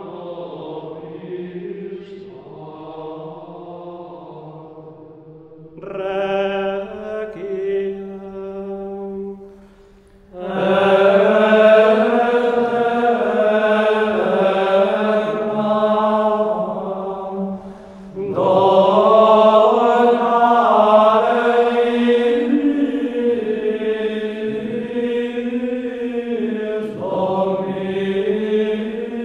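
Background music: voices singing a slow sacred chant in long held phrases, growing much fuller and louder about ten seconds in.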